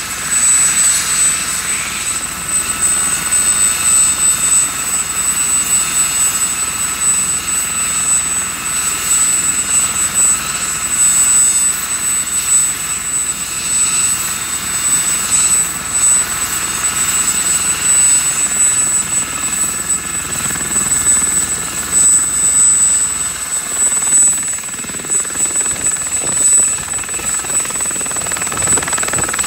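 Aérospatiale SA342J Gazelle helicopter ground-running with its main rotor turning: the Turbomeca Astazou XIVH turboshaft gives a steady high-pitched turbine whine over the rotor noise, which swells and dips. The engine is running after a compressor wash, ahead of a hover test.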